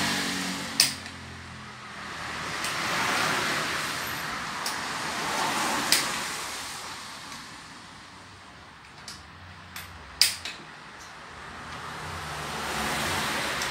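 Occasional sharp metallic clinks of hand tools working on the cylinder head of a Renault 1.5 dCi engine. Behind them a rushing noise swells and fades.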